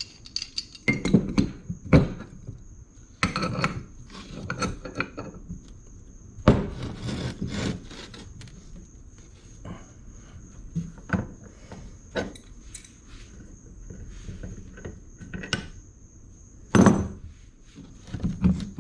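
Pipe wrench working on the end of a lowrider's hydraulic cylinder to take it off: scattered clanks and knocks of metal on metal, with scraping and rubbing between them.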